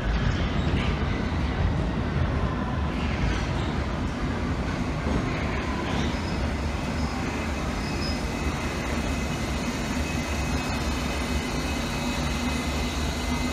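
London Underground S-stock train approaching and running into the platform: a steady low rumble of wheels on rail, with faint thin high tones over it.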